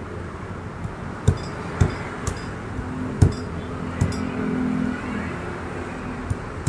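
Knife cutting into a durian's spiky husk: about seven sharp knocks and cracks as the blade is jabbed and worked into the rind. A steady low hum runs through the middle of it.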